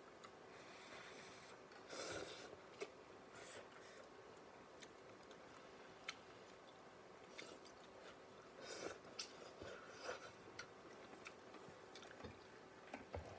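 Faint sounds of a person eating noodles with chopsticks: soft chewing with scattered small clicks and a few short smacks, the clearest about two seconds in and again near the end.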